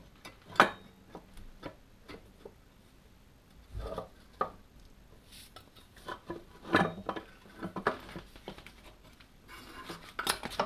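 Scattered metallic clicks and knocks of parts and hand tools being handled on a Land Rover TD5 diesel engine as the centrifugal oil filter is taken off. The sharpest knock comes about half a second in, a cluster of knocks follows around seven seconds, and a scraping rub comes near the end.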